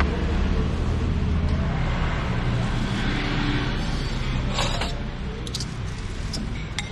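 A steady low rumble, like traffic or a running motor, under a few sharp clinks of dishes on a counter about halfway through and near the end.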